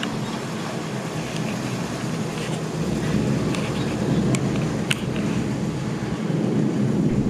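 Rolling thunder: a long low rumble that swells about halfway through and again near the end, with a few faint sharp ticks over it.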